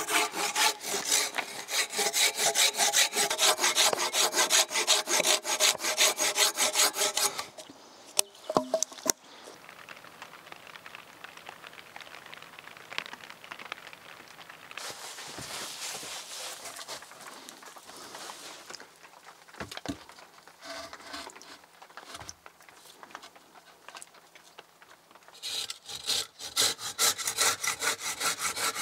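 Handsaw cutting through a wooden log in fast, even back-and-forth strokes for about seven seconds. A long, much quieter stretch follows with a couple of sharp knocks, then the sawing starts again near the end.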